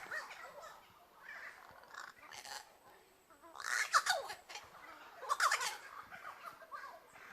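Several Jamaican crows calling noisily: a run of harsh, chattering calls, loudest in two bursts about four and five and a half seconds in, with quieter calls between.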